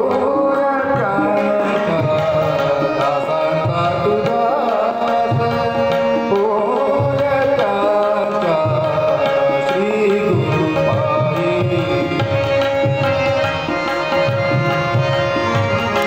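Bhajan: a man singing a devotional melody, accompanied by tabla with a steady rhythm of strokes and harmonium holding sustained chords.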